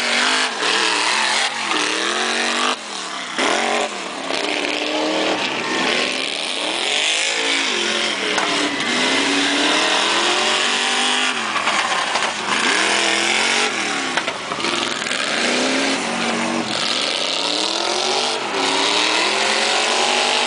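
Chevy V8 engine in an off-road Toyota pickup revving hard over and over, its pitch climbing and dropping again every second or two as the throttle is opened and lifted.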